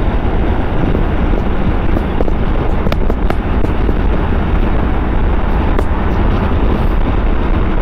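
Steady wind rush and road noise from a Hero Xpulse 200 4V motorcycle cruising at highway speed, the wind buffeting the rider's microphone.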